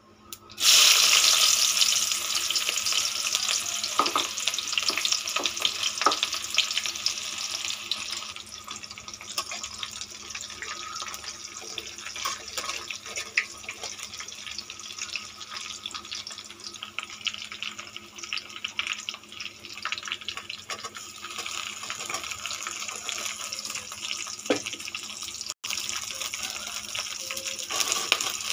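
Sliced onions hitting hot oil in a metal kadai, sizzling loudly at once, then frying on with a steady sizzle that slowly eases, with occasional clicks of the steel spatula against the pan as they are stirred. Near the end chopped okra goes in and the sizzle swells again.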